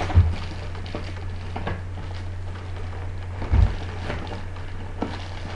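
Plastic toy blaster parts and packaging being handled: light clicks and rustles, with two thuds about a quarter second in and about three and a half seconds in, over a steady low hum.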